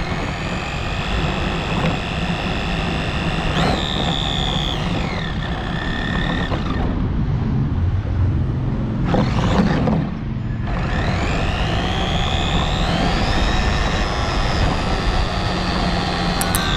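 Remote-control car's motor whining as it drives over asphalt, the whine climbing in pitch as the car speeds up and dropping as it slows, several times over. A steady rumble of tyres and road noise runs underneath.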